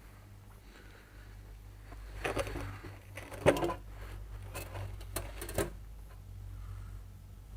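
A handful of short metal clanks and clinks from metal parts knocking together, the loudest about three and a half seconds in, over a low steady hum.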